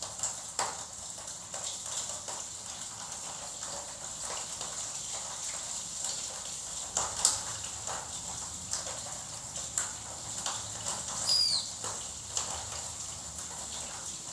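Gouldian finches moving about, with scattered light taps and clicks throughout and one short, high, falling call about eleven seconds in. A faint steady high whine runs underneath.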